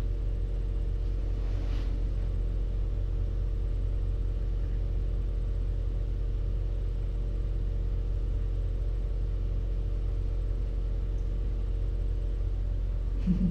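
A steady low hum of room noise, with a faint hiss over it and no change in level.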